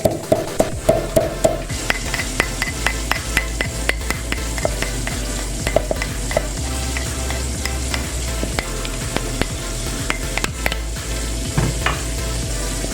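Food frying in a pan with a steady sizzle while a utensil stirs it, clicking and scraping against the pan about three times a second, the clicks thinning out in the second half.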